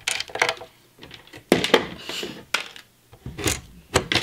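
Scattered light clicks and taps of small plastic Qixels cubes and parts being handled on a table, with a brief soft hiss about two seconds in.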